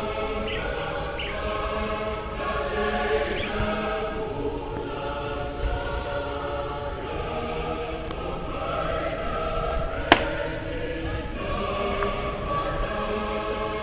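A choir singing in long held notes, with a single sharp knock about ten seconds in.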